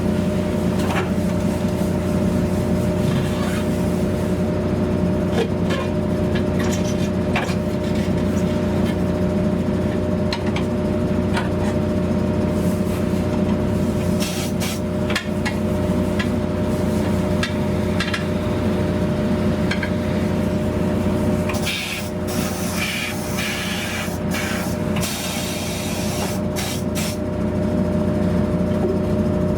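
Steady hum of tyre-shop machinery, with repeated scraping, rubbing and sharp clicks of tyre-changing work over it.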